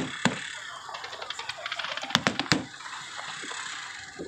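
Fireworks display: aerial shells bursting as sharp bangs, two right at the start and two more about two seconds in, with a rapid run of crackling between them over a steady hiss.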